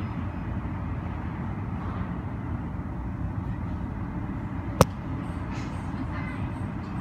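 Steady low rumble of airport ambience heard from inside a terminal, with a single sharp click a little after the middle.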